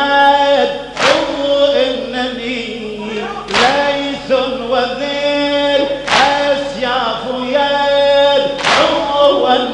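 Men's voices chanting an Arabic religious lament for Imam Husayn without instruments, a lead voice on the microphone with others singing long held lines. A sharp beat falls about every two and a half seconds.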